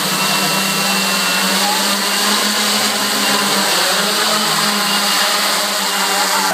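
Electric motors and propellers of a four-rotor camera drone buzzing steadily as it lifts off the ground and hovers low.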